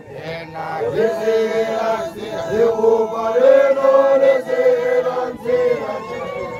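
A group of voices chanting a song together in unison, with long held notes that rise and fall and short breaks between phrases.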